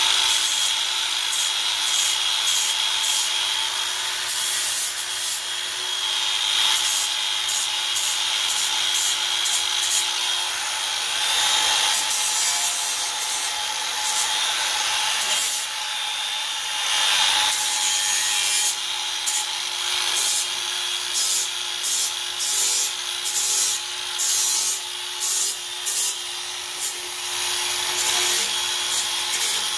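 Cordless DeWalt 20V angle grinder with a 60-grit flap disc running with a steady whine while it sands surface rust off the edge of a mower deck, a rough grinding rasp over the motor. In the second half the grinding comes and goes in short bursts as the disc is pressed on and lifted off the metal.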